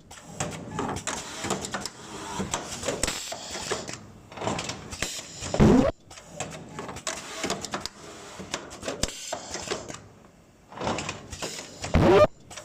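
Semi-automatic cup mask nose clip and ear loop welding machine running through its cycle: steady mechanical clatter and clicks. A loud, short sound gliding in pitch comes twice, about six seconds in and near the end.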